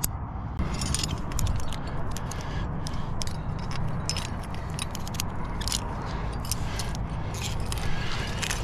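Metal climbing gear (carabiners and cams) clinking and jangling in many quick light clicks as a climber moves up a granite crack, over a steady low rumble.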